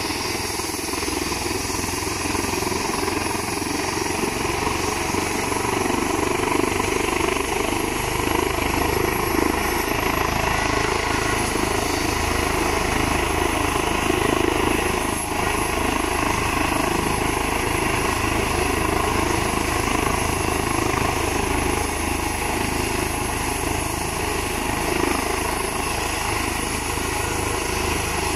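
Airbus H135 trauma helicopter running on the ground with its rotor turning, a steady turbine whine over the rotor noise, as it readies for lift-off.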